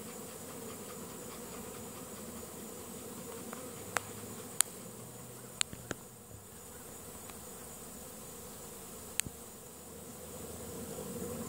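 A large swarm of honeybees buzzing steadily around a hive box. A few sharp clicks stand out, about four to nine seconds in.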